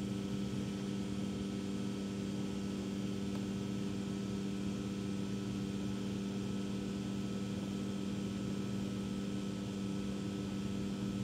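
Steady machine hum at a constant pitch over a low even hiss, unchanging throughout.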